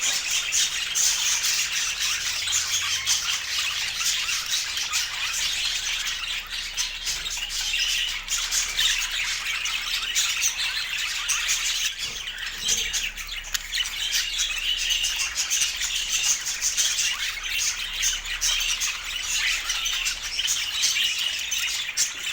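Budgerigars chattering and squawking without a break, a dense stream of short, high chirps and warbles.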